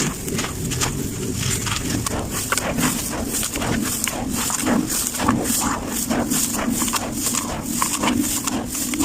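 Sand-cement crumbling and crunching: a rapid, irregular run of gritty crunches and crackles.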